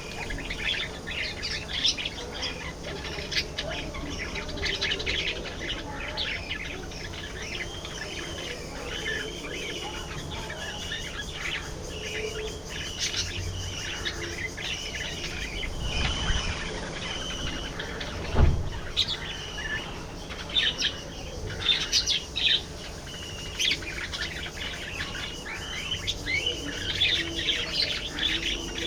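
A flock of budgerigars chirping and warbling continuously, many calls overlapping. A single thump about two-thirds of the way through.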